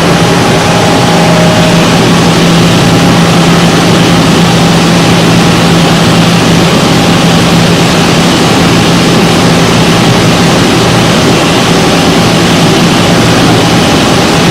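Steady, loud machinery noise with a constant low hum, consistent with a CNC machining center running.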